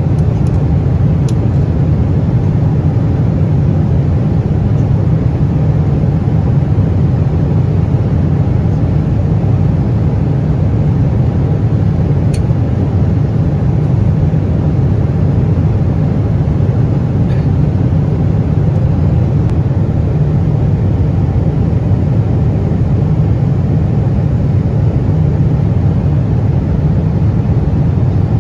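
Steady cabin noise of a Boeing 777-300ER in cruise flight: an even, low rumble of engine and airflow noise, with a couple of faint ticks.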